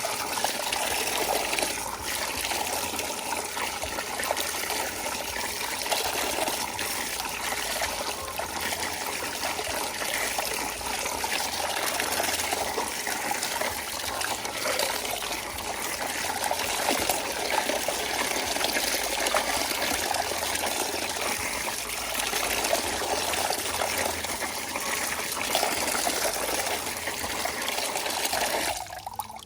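Water running steadily, then cutting off abruptly near the end.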